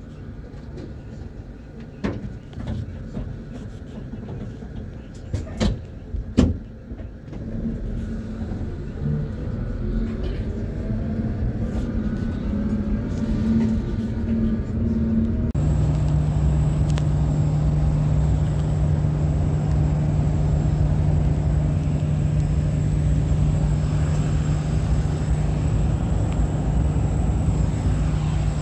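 Van engine and road noise heard from inside the cabin, with a few sharp knocks in the first several seconds. After about fifteen seconds it becomes a louder, steady hum.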